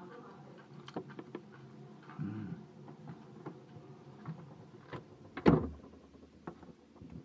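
Refrigerator door swung shut, a loud thud about five and a half seconds in, heard from inside the fridge; faint clicks and knocks before and after it.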